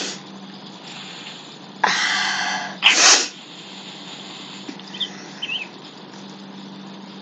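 A person sneezing: a noisy breath in about two seconds in, then the louder, sharp sneeze about a second later, over a steady low hum.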